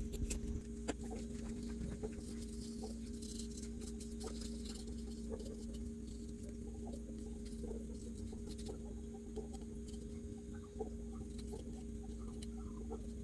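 Faint ticks and light taps of hands handling a metal brake plate and a glue tube, over a steady low hum.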